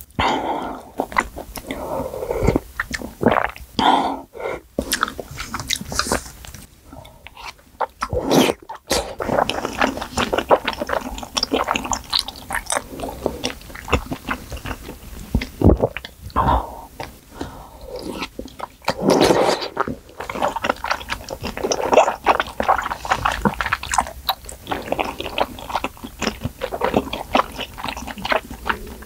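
Close-miked eating of spicy malatang: sipping broth from a spoon, slurping and chewing wide glass noodles and soft fillings, with many wet mouth clicks.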